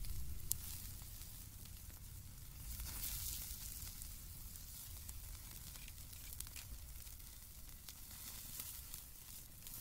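Open wood fire crackling and tandoori-marinated chicken legs sizzling as they roast over the flames: a steady hiss with scattered sharp pops and a low rumble underneath.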